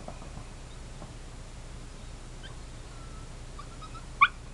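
Quiet steady outdoor background with a few faint bird chirps, then two short, loud, high chirps in quick succession near the end.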